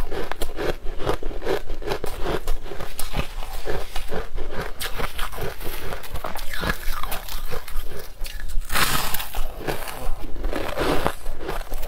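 Purple-tinted crushed ice crunching as it is chewed and handled: a fast crackle of crisp crunches in a steady chewing rhythm, with one louder, longer crunch about nine seconds in.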